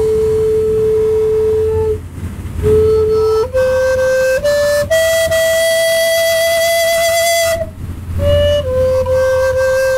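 A flute playing a slow melody of long held notes, stepping up to a long high note in the middle and back down again, with two short pauses.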